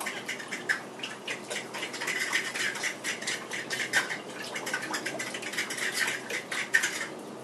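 A block of mozzarella cheese being grated on a flat handheld metal grater: repeated rasping strokes, about two a second.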